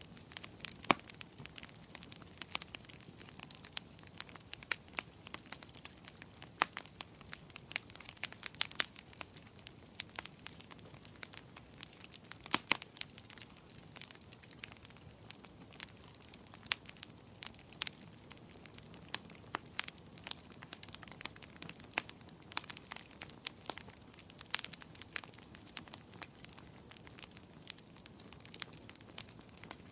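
Wood fire crackling: a steady stream of sharp, irregular pops and snaps, several a second, over a faint hiss of burning.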